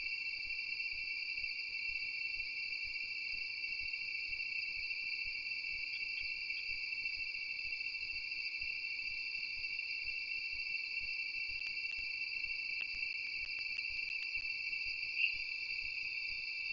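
Steady night chorus of insects: a continuous high-pitched trill that doesn't let up, with one short louder chirp near the end.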